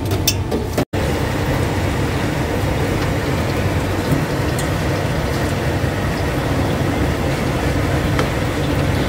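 Fresh-cut potato fries sizzling and bubbling steadily in the hot oil of a commercial deep fryer, with a low hum beneath: their second fry to crisp them. The sound drops out for an instant about a second in.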